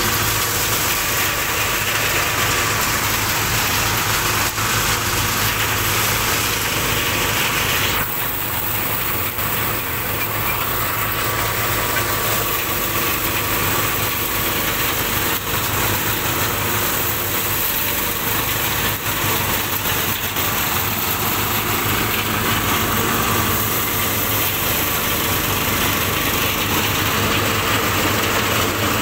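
Engine-driven drum rice thresher running steadily as bundles of rice stalks are fed in, an engine hum under a steady rushing, threshing noise. The higher part of the rushing noise eases about eight seconds in.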